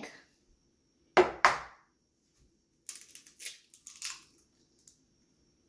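An egg knocked twice against a hard edge, two sharp cracks about a quarter second apart, then the shell crackling as it is pulled apart.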